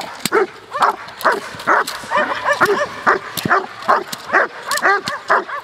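Young German Shepherd, about eleven months old, barking at a decoy with a bite sack during protection training. The barks come in a rapid, steady run, about two to three a second.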